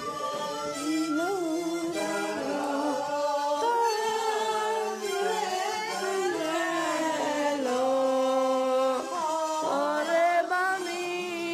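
Several voices singing together in harmony, a choir-like song of long held notes that change pitch together.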